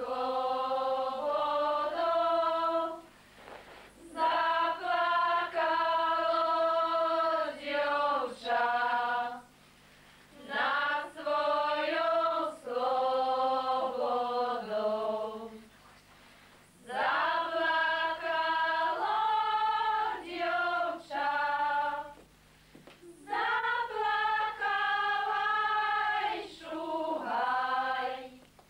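Women's voices singing a Slovak folk song together, unaccompanied, in sung phrases of four to six seconds with short breaks for breath between them.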